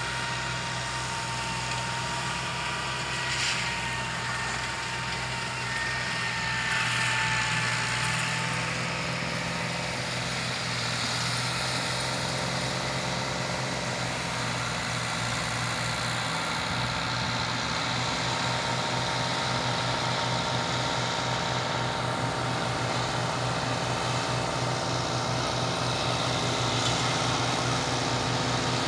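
Landini Powerfarm 90 tractor running steadily while it drives a Dalla Fiora mower-conditioner through ryegrass: a steady machinery drone with held whining tones.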